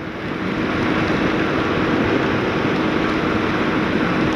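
Yamaha YBR Factor 125's single-cylinder four-stroke engine running at a steady cruising speed, under a steady rush of wind and tyre hiss on a wet road.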